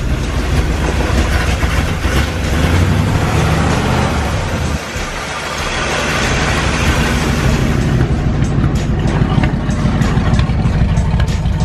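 V8 engine of an unrestored 1955 Chevrolet 3100 pickup running with a deep rumble. It dips briefly about five seconds in, then runs on a little louder and steady.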